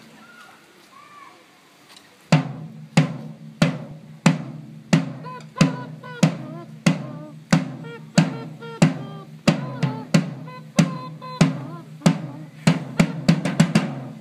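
A single drum struck with drumsticks in a steady beat, about one and a half strikes a second, each stroke ringing low. It starts about two seconds in and ends with a quicker run of strikes.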